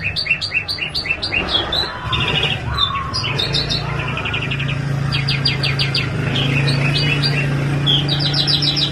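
Songbird singing in a string of quick repeated-note trills, each phrase a fast run of identical notes before switching to a new one. A steady low hum runs underneath.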